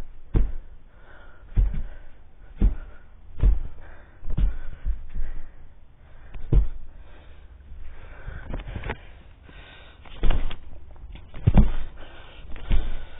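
Yellow Labrador playing close to the microphone: irregular soft thumps, roughly one a second, with sniffing and snorting between them.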